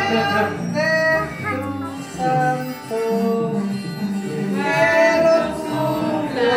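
Several voices singing a birthday song together, with some notes held long.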